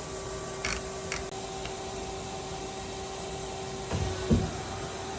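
Powered-up Nakamura-Tome SC-250 CNC turning center humming steadily with a few fixed tones, two light clicks about a second in, and a heavier clunk near the end.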